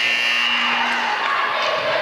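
Referee's whistle blown in one long, steady, high-pitched blast of about a second and a half, over crowd voices and cheering in a gym.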